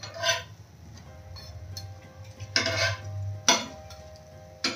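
A metal spatula scraping and clinking against a pan as the snack pieces are flipped: about four short strokes, one a little longer, over a low steady hum.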